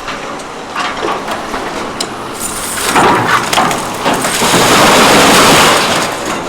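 Vehicle noise, with a loud rushing hiss that swells about three seconds in, holds for about three seconds and then dies away.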